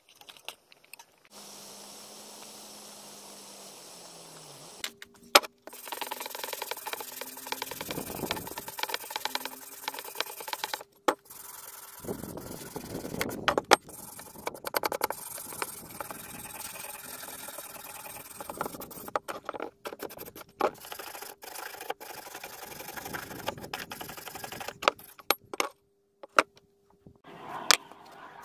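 A small wire brush and a hand scraper scrubbing rust off an old steel axe head, in short clips of rasping strokes, broken by abrupt cuts and sharp clicks.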